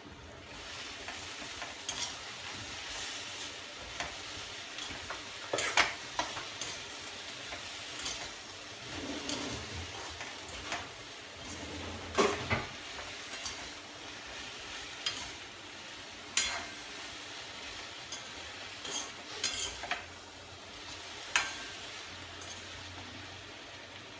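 Okra (bhindi) frying in an open pan with a steady sizzle, while a spatula stirs it and clinks and scrapes against the pan at irregular moments.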